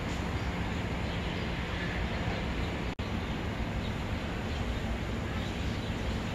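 Steady background noise, an even hiss over a low hum, with a brief dropout about three seconds in.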